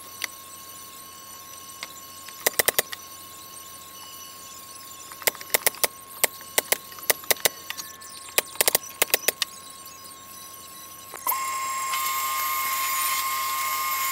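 Sharp wooden clicks and knocks in quick clusters as a plywood shelf panel is handled and seated in a cabinet carcass. About eleven seconds in, a table saw is switched on and runs steadily and loudly.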